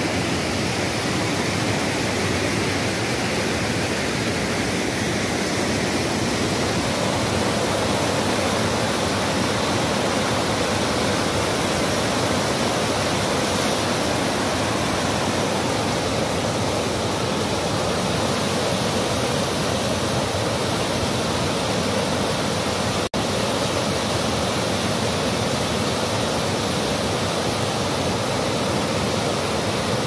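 River water cascading over rock ledges in white-water rapids and small falls: a steady, loud rushing, broken once by a split-second dropout about two-thirds of the way in.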